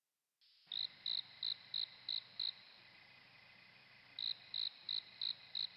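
Cricket chirping: short, evenly spaced chirps, about three a second, in two runs with a pause of about a second and a half between them.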